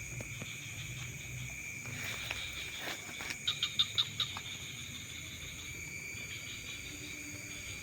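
Steady chorus of night insects such as crickets, several high trills holding on without a break. About three and a half seconds in, a quick run of about six sharp clicks.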